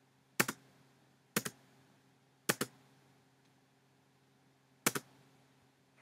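Four sharp clicks of a computer mouse button, each a quick double tick of press and release. The first three come about a second apart and the last after a gap of over two seconds. A faint steady hum lies underneath.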